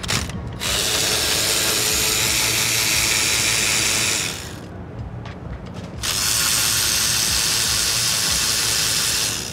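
Power ratchet running in two long runs of about three and a half seconds each, with a pause of about two seconds between, spinning out an intake manifold bolt.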